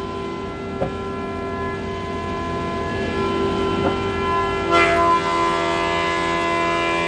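Griggio FS530 planer thicknesser running with a steady, many-toned machine whine, swelling with a louder rushing surge about five seconds in and again near the end.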